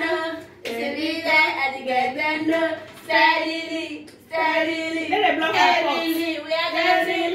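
Women singing in short phrases of held notes, broken by brief pauses.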